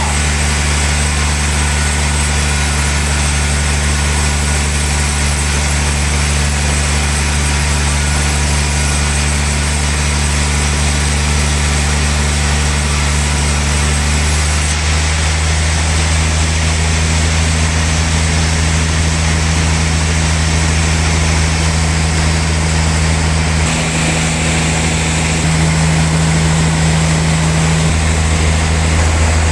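Sawmill cutting a large log: a steady machine drone under a continuous hiss from the saw. The highest part of the hiss drops away about halfway through, and the drone shifts slightly a few seconds before the end.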